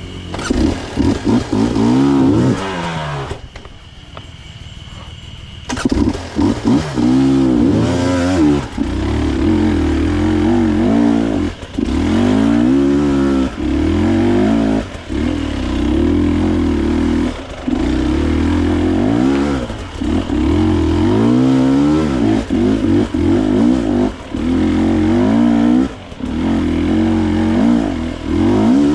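Dirt bike engine revving up and down again and again as it is ridden along a trail, the throttle opened and closed with many short drops in between. It goes quieter for about two seconds a few seconds in, then carries on.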